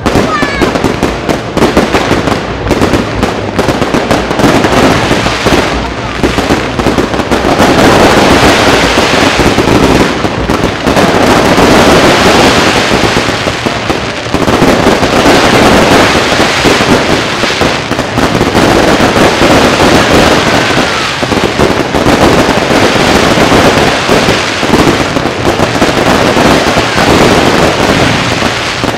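Aerial fireworks display in a dense, continuous volley: overlapping shell bursts and crackling with hardly a gap, getting louder and denser about eight seconds in.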